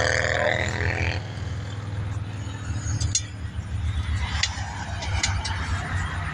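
A few short, light metal clinks and taps from tire-changing work on a manual tire machine, over a steady low rumble.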